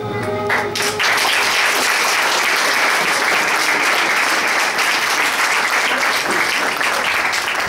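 The final held note of the music ends about a second in, then a congregation applauds steadily.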